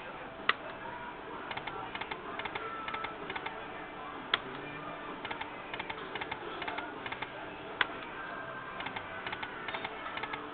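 Lightning Link video slot machine being played: a sharp click about every three and a half seconds as each spin starts, with bursts of rapid ticking as the reels spin and stop, over faint electronic machine tones.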